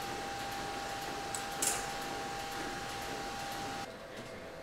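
A steady high-pitched hum over a hiss, with a short metallic clink about one and a half seconds in; the hum and hiss drop away a little before the end. No engine is running.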